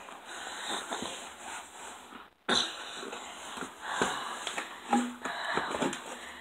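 A person's breathing and sniffing close to the microphone, with scattered clicks of the camera being handled. The sound cuts out completely for a moment about a third of the way in.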